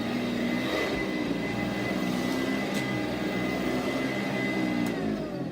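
Sanitaire SC888 commercial upright vacuum cleaner running with a steady high whine, then switched off near the end, its motor winding down with a falling pitch.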